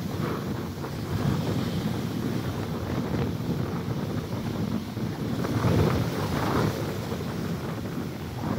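Sea waves breaking and washing up a sand-and-pebble beach, swelling in surges, with wind buffeting the microphone.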